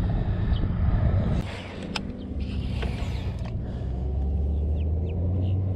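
Boat outboard motor running steadily with a low hum, easing off briefly about a second and a half in before picking up again. A single sharp click sounds about two seconds in.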